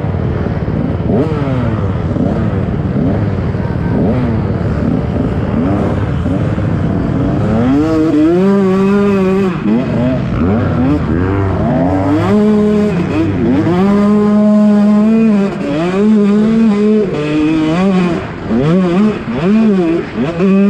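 KTM 125 SX two-stroke dirt bike engine being ridden hard. The pitch climbs through the revs, holds high, then falls back again and again, with sharp drops near the end as the throttle is chopped. Heavy low rumble, likely wind, covers the engine for the first several seconds.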